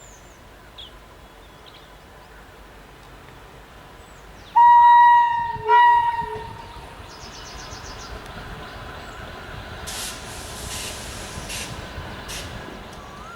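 Locomotive horn sounding twice, a loud blast of about a second followed at once by a shorter one. Then the steady running noise of a train.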